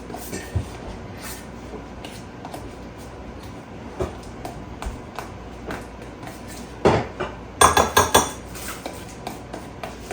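Kitchen utensil clinking and tapping against a bowl while ingredients are handled, with a quick run of louder clinks about seven to eight seconds in.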